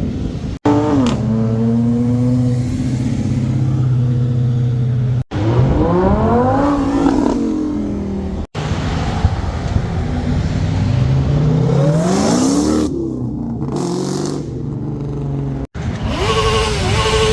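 Cars accelerating hard as they pass. Their engine notes climb in pitch and drop back several times, in short takes broken by abrupt cuts.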